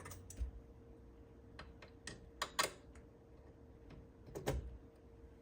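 Scattered light clicks and taps from hands working on the battery connections of a fire alarm panel, over a faint steady hum.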